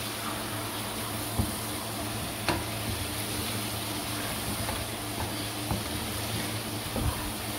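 Potatoes and chicken kofta sizzling in oil in a nonstick wok while a spatula stirs them, knocking and scraping against the pan a few times. A faint steady low hum runs beneath.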